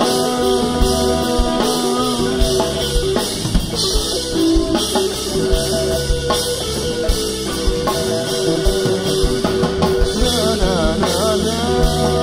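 Live rock band playing an instrumental passage: electric guitar, bass guitar and drum kit. Wavering, bending notes come in about ten seconds in.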